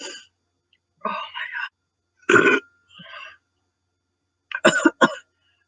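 A woman burping: several short separate burps and throaty breaths, the loudest about two seconds in, then a quick run of three or four sharp hiccup-like catches near the end.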